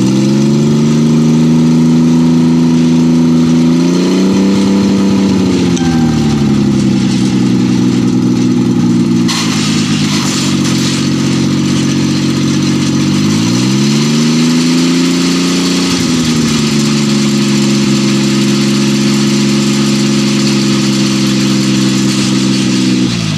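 Small engine on a homemade helicopter frame running steadily. It is revved up about four seconds in and drops back, then revved up again near the middle and held for a couple of seconds before settling back.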